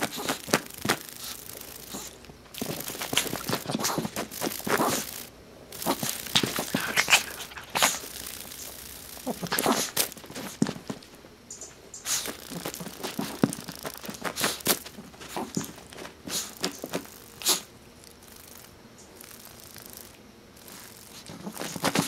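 Miniature pinscher's paws scuffing and tapping on carpet as it pounces around a cicada: an irregular run of rustles and sharp taps with short pauses between.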